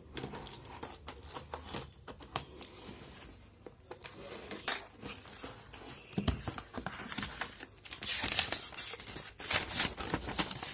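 Hands opening a taped cardboard parcel, with tearing, scraping and rustling of tape, cardboard flaps and paper. Over the last few seconds there is denser, louder paper crinkling as the paper invoice inside is pulled out and unfolded.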